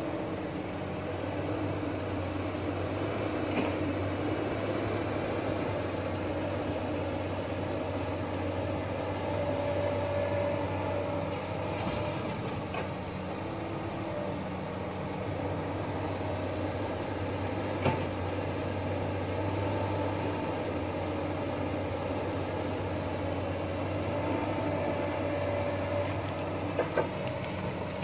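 Hydraulic excavator's diesel engine running steadily under load while it digs and loads soil into a dump truck, its hydraulic whine rising and falling with each movement of the boom. A few short, sharp knocks.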